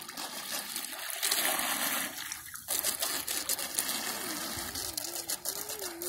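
Radio-controlled model submarine's propeller running at the surface, churning and splashing the water behind it, with a brief break about two and a half seconds in. A wavering tone rises and falls over the last two seconds.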